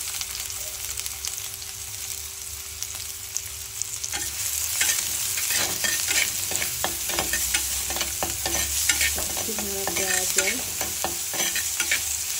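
Chopped onion sizzling in hot oil in a terracotta clay pot. From about four seconds in, a spatula stirs and scrapes against the pot in short, irregular strokes.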